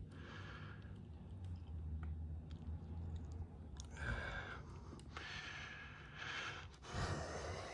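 A person breathing heavily and sighing through the nose in a few slow swells, with a few faint clicks of small parts being handled, over a low steady hum.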